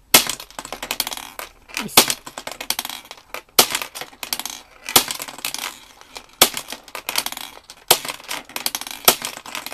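Thomas & Friends toy pachinko game being played: a sharp clack about every second and a half as the push lever is worked, with the balls clicking and rattling through the pins between.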